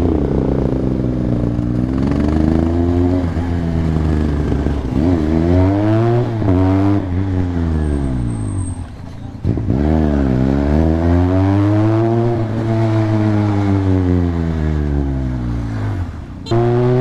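Motorcycle engine revving up and down while riding, its pitch climbing and falling in long sweeps. The revs drop sharply about seven seconds in and dip briefly about nine and a half seconds in, then climb again.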